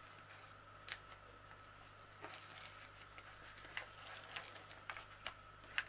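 Faint crinkling of a diamond painting canvas's plastic cover sheet being lifted and peeled back by hand, with a few small sharp clicks scattered through.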